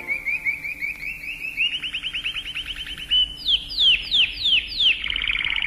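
Bird calls: short, high chirps that speed up into a fast trill, then five loud downward-slurred whistles, then a rapid trill near the end.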